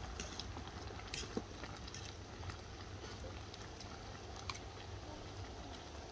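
A metal spoon stirring chicken and vegetables in a cooking pot, giving a few scattered light clinks and scrapes against the pot over a steady low rumble.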